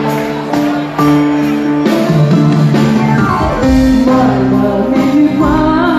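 Live music in a club with a woman singing over sustained chords; the full band comes in about a second in, and her voice bends through wavering phrases in the second half.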